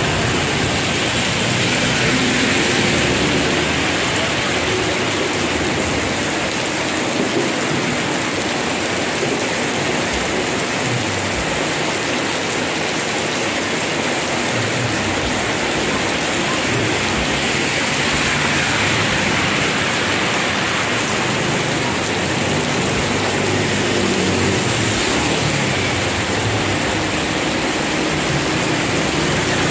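Heavy rain pouring down steadily, an even, unbroken hiss of downpour.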